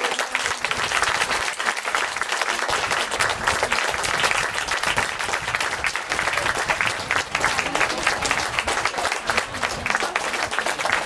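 Audience applauding: a steady, dense clapping that holds at an even level throughout.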